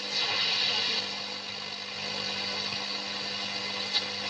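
FM static hiss from a Sony CF-570S radio cassette recorder's speaker as the dial is tuned between stations, with a steady hum under it and short swishes as the tuning passes signals, just after the start and again near the end. No station is coming in.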